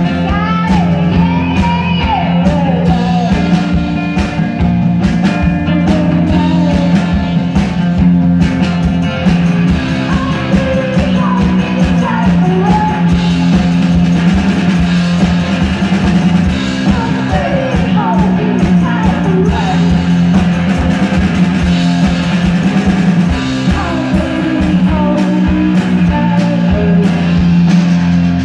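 Live rock music from an electric guitar and a drum kit playing loud and steady, the guitar bending and gliding its notes over a held low note.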